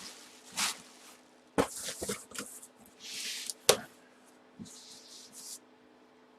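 Handling noises: a run of short rustles and swishes with a few sharp knocks, stopping about five and a half seconds in.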